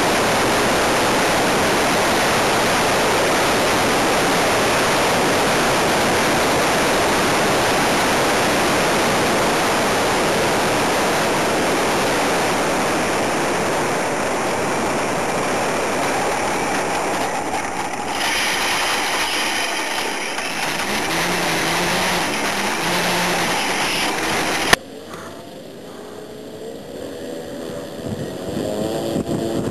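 Dense rush of wind and propeller noise on a model airplane's onboard microphone as it flies low over grass; the rush eases and a steadier motor tone comes through in the last seconds before it cuts off with a click. Then a scale Nieuport 28 model biplane's engine runs more quietly, rising in pitch.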